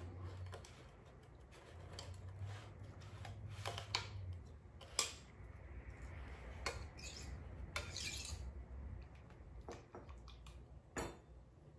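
Scattered light clinks, taps and short scrapes of kitchen utensils and glassware, the sharpest about four, five, seven and eleven seconds in, over a faint low hum.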